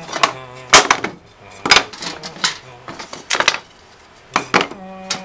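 Wooden scrap offcuts knocking and clattering against each other and the plastic bin as hands rummage through it and set pieces down, about nine sharp knocks, the loudest about a second in, some ringing briefly.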